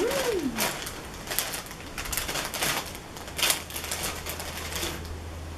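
Crinkling and crackling of a plastic potato-chip bag being torn open and handled, in irregular clusters of sharp rustles.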